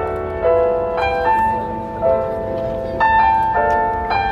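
Slow instrumental music with a keyboard melody, new notes struck about once a second and left to ring.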